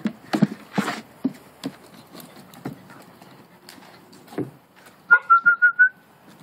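Husky puppy's claws and paws tapping and scuffing on hard steps: a string of irregular clicks, busiest in the first second. About five seconds in, six quick short whistled notes at one high pitch, calling the dog.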